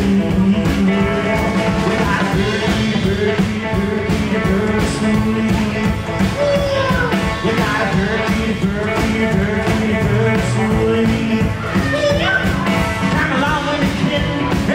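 Live rockabilly band playing a fast number: electric guitar, upright double bass and a drum kit with a steady driving beat.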